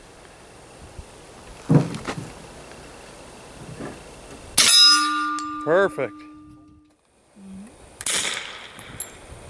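Suppressed FN FNP-45 pistol with a Banish 45 suppressor fired three times, a few seconds apart. After the middle shot a hit steel target clangs and rings with a steady tone for about two seconds.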